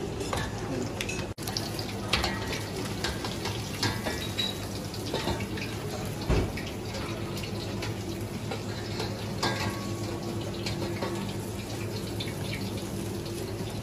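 Breaded seafood deep-frying in a large pot of hot oil: a steady sizzling hiss full of small crackles and pops over a steady low hum. A soft thump about six seconds in as the wire skimmer sets fried pieces down on paper.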